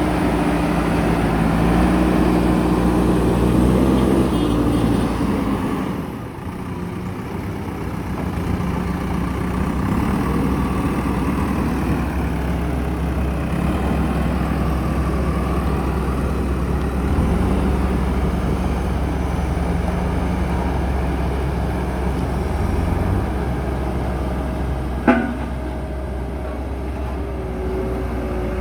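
JCB backhoe loader's diesel engine running steadily under work. Its note drops about six seconds in, then steadies. A single sharp knock comes near the end.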